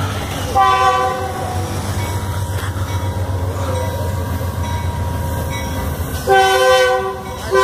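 Approaching diesel locomotive sounding its multi-note air horn: a short blast about half a second in, a longer blast past six seconds, and another starting at the very end. A steady low rumble of the locomotive runs underneath.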